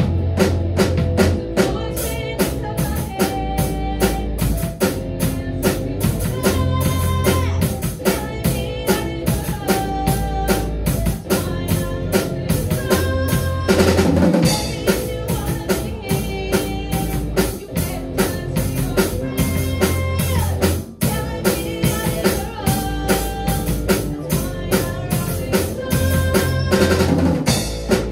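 A school rock band playing an instrumental passage live. A drum kit keeps a steady beat with bass drum and snare under bass guitar, electric guitar, piano and saxophone.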